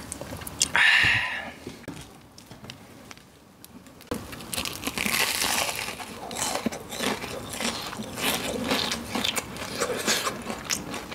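Close-up crunching of a crisp, deep-fried breaded pork cutlet being bitten and chewed. There is one loud crisp crunch about a second in, then from about four seconds in a steady run of crackly crunching as it is chewed.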